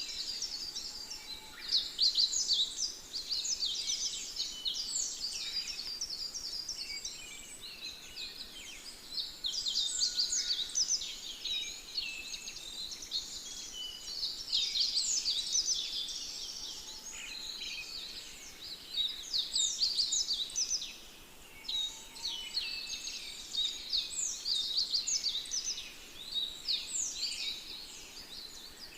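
A dense chorus of many small birds chirping, with rapid high downward-sweeping chirps overlapping without a break.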